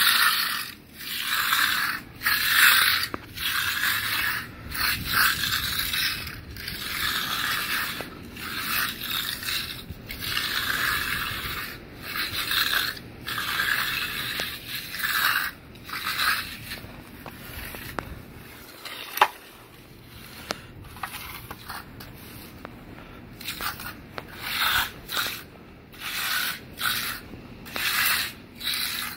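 Steel hand trowels scraping across the surface of a fresh concrete slab as it is hand-finished smooth, in repeated sweeping strokes about one a second. The strokes ease off for a few seconds past the middle, where there is a single sharp click.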